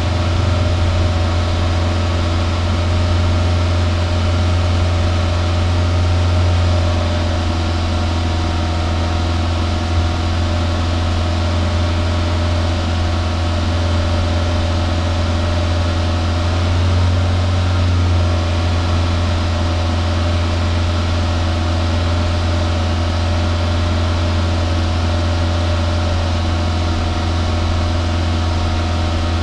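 Toyota 2SZ-FE 1.3-litre four-cylinder engine idling steadily, heard close at the tailpipe, with slight swells in level now and then. The engine has just had an intake-cleaner treatment injected and is running while the cleaner burns off.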